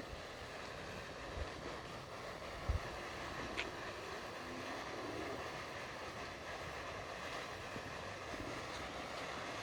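Quiet outdoor background between fireworks: a faint steady hiss with a couple of soft knocks in the first few seconds.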